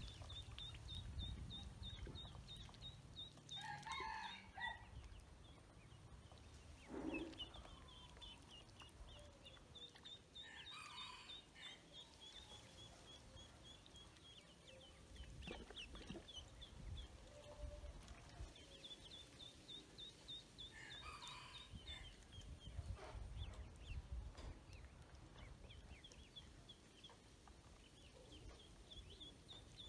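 Ducklings peeping faintly in runs of quick, high, evenly spaced peeps, with a few louder calls among them.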